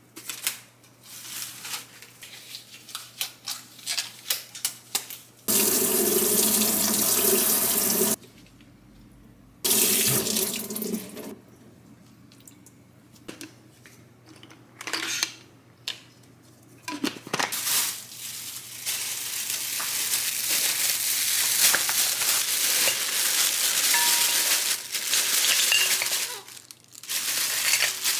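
Kitchen tap running into a stainless steel sink, in two short spells and then a longer stretch near the end, between rustling of plastic packaging and light clicks of things being handled and set down.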